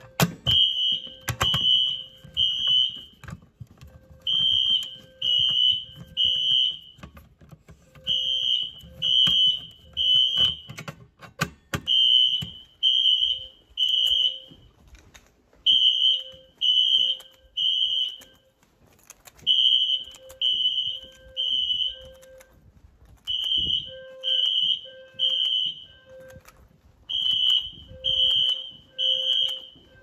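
Siemens ZNS fire alarm horn strobes sounding the temporal-three evacuation pattern: three short high beeps, a pause, and again, repeating steadily. A few sharp knocks come in the first two seconds and again around ten to twelve seconds in.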